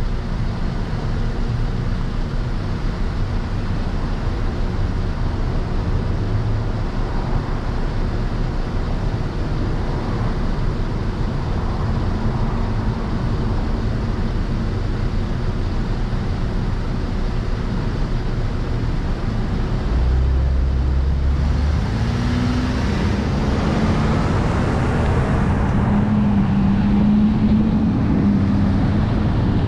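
Car driving, with steady engine and tyre noise heard from inside the cabin. About twenty seconds in it grows louder and hissier, and the engine note wavers up and down.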